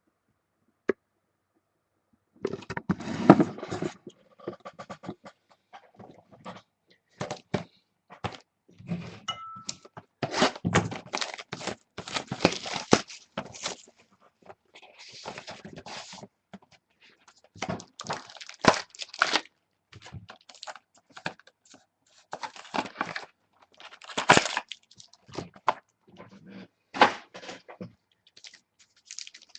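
A sealed box of football trading cards being handled and opened: irregular rustling, scraping and knocks of cardboard and plastic wrapping, after a single sharp click about a second in.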